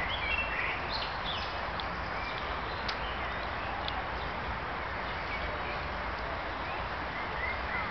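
Outdoor ambience: steady background noise with short bird calls, most of them in the first second and again near the end.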